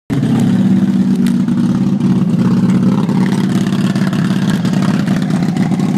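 2005 Big Dog Pitbull chopper's V-twin engine running at a steady speed, loud and even with no revving.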